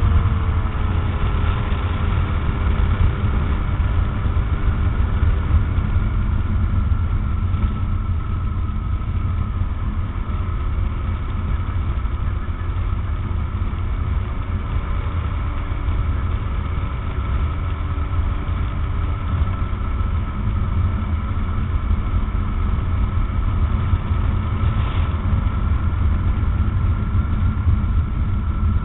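Rotax 912 four-cylinder engine and propeller of a Tanarg trike running steadily in flight, with a heavy low wind rumble on the microphone. The engine's tone dips slightly about a second in and wavers a little in the middle.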